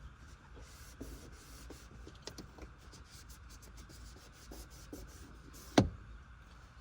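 Cloth rubbing and wiping over the door-handle trim of a car door panel, with scattered light ticks. One sharp click comes a little before the end.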